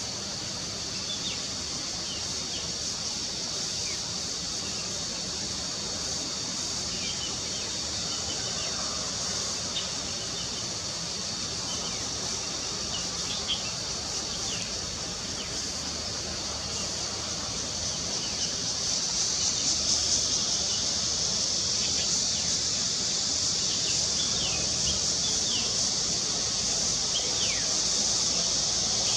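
A steady high-pitched insect drone that swells for a few seconds about two-thirds of the way through, with short bird chirps now and then.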